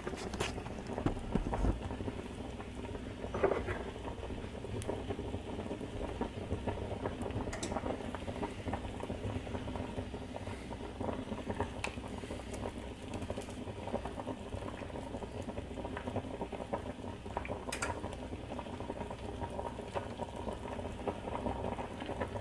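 Pot of water and chicken pieces at a rolling boil, bubbling steadily, with a few sharp clicks.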